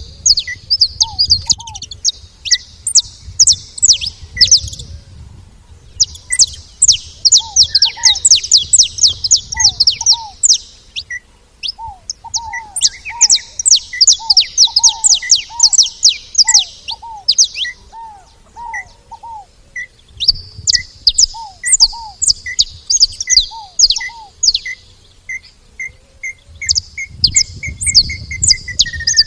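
Saffron finches chattering at a feeding spot: runs of rapid, high chirps lasting a few seconds each, with short gaps between runs. Steadier, evenly spaced lower call notes from other birds go on underneath, and a low rumble is heard at times.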